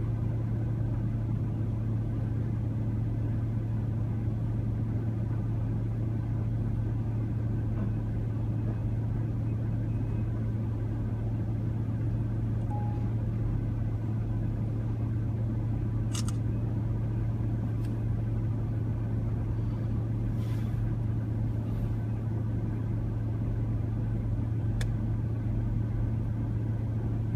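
Engine running steadily, a low even drone with no change in speed, with a few faint clicks partway through.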